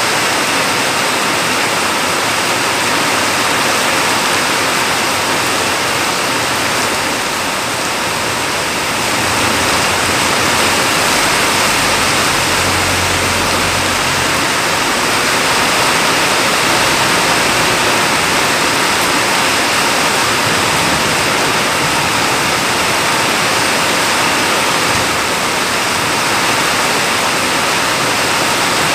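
Heavy rain pouring down, a loud, dense, steady hiss. About halfway through a passing truck adds a brief low rumble.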